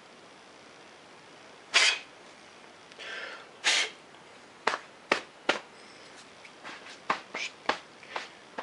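Two short hissing puffs of air about two seconds apart, then a string of sharp clicks and lighter ticks from small hard objects being handled on a bench.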